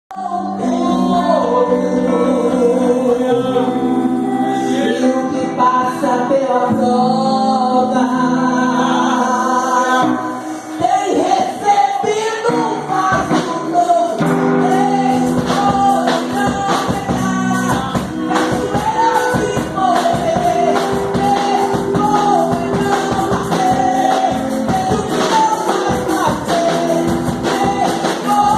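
Live Pentecostal worship music: held keyboard chords for the first ten seconds or so, then singing over a full band with tambourine and a steady beat.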